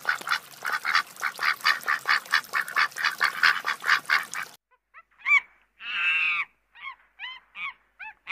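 Ducks quacking: a fast, even run of harsh quacks, about five a second, for over four seconds. After a short gap come a few separate, shorter calls with a clearer pitch, one of them longer.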